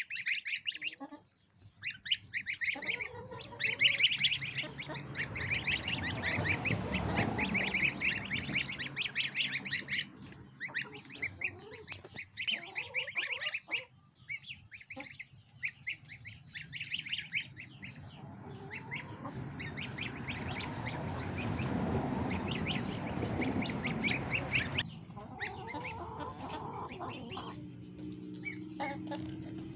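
A group of two-week-old goslings peeping continuously, many high, rapid cheeps overlapping. The calls thin out near the end.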